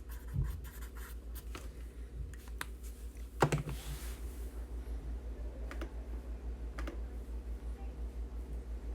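Typing on a computer keyboard: a run of quick key clicks, a louder knock about three and a half seconds in, then a couple of single clicks, over a steady low hum.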